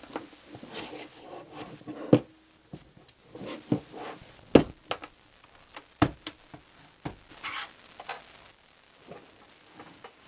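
Handling noise from a laptop's AC power adapter cable and plug on a wooden desk: scattered clicks, rubbing and rustles, with a few sharp knocks about 2, 4.5 and 6 seconds in.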